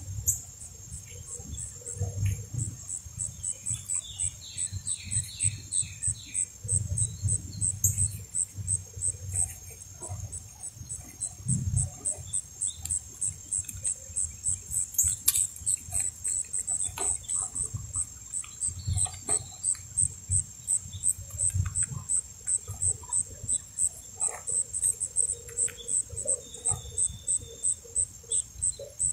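American crow pecking at birdseed on a wooden stump, a quick irregular run of dull taps. Behind it a high-pitched insect call pulses steadily, about three pulses a second.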